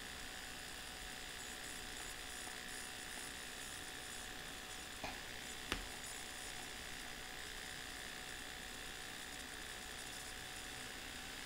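Low, steady background hiss and faint hum of room tone, with two short clicks, the second about three-quarters of a second after the first, about five seconds in.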